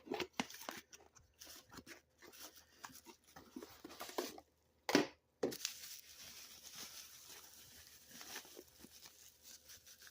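Wrapping being handled and torn open, crinkling and tearing in quick small crackles, with one louder crackle about five seconds in.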